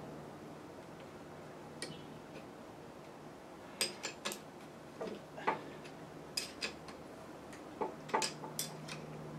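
Scattered sharp metallic clicks and clinks, some in quick pairs, from hand tools working a stubborn bolt out of the machine, over a steady low hum.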